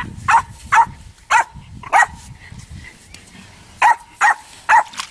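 Jack Russell terrier play-barking at a stick held out to it: short, sharp, high barks, four in quick succession, a pause of about two seconds, then three more.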